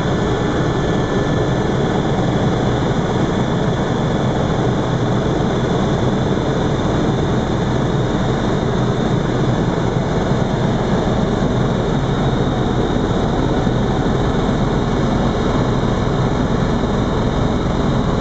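Helicopter engine and rotor noise heard from inside the cabin in flight: a loud, steady drone with a low hum underneath.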